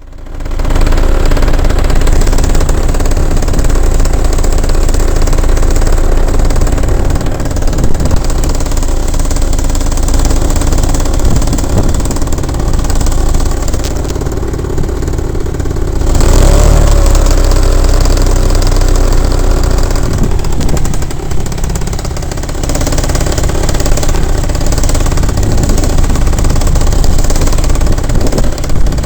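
Paramotor engine and propeller running loudly and steadily, with heavy low rumble. About sixteen seconds in the engine note shifts in pitch and the sound gets louder, as with a throttle change.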